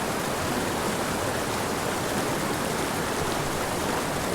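Small mountain creek rushing and tumbling among boulders: a steady, even rush of water.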